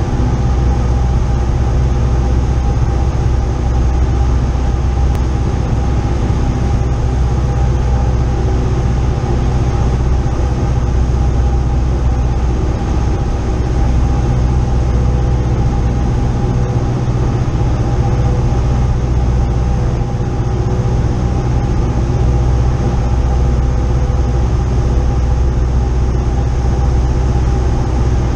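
Single-engine light plane's piston engine and propeller droning steadily, heard inside the cockpit during the landing approach: a loud, even low hum with a steady pitch.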